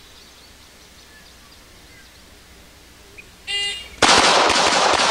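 An electronic shot-timer beep, then about half a second later a Springfield Armory government model 1911 .45 pistol starts a fast string of double-tap shots, close together with a lingering echo.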